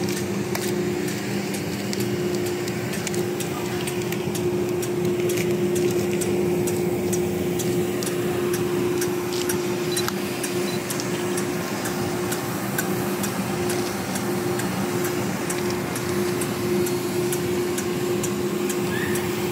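Steady machinery hum from a ship, holding two constant low tones, with faint light clicks and rustles over it.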